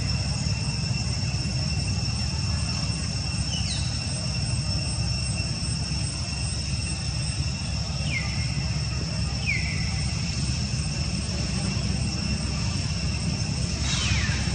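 Insects droning in two steady high tones over a low steady rumble. A few short chirps falling in pitch come through, about 4, 8, 9.5 and 14 seconds in.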